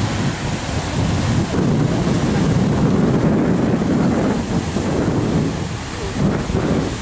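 Heavy ocean surf crashing against rock ledges, a steady low rumble of breaking water that swells as a large wave smashes into the rocks around the middle, then eases off.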